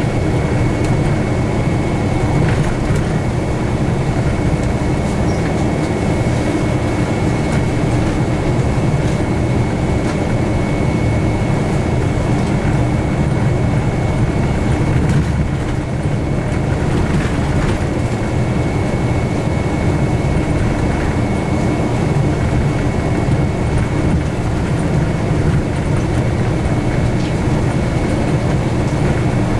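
Steady running noise inside a moving bus: engine and tyre rumble, with a faint steady high whine running through it.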